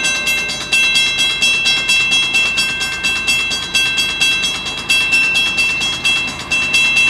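Railroad grade-crossing bell ringing rapidly and evenly, about four strikes a second, as a train approaches.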